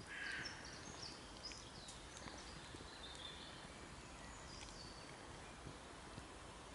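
Faint woodland birdsong: short high chirps and trills scattered through, with a brief louder scratchy sound at the very start and a few light clicks.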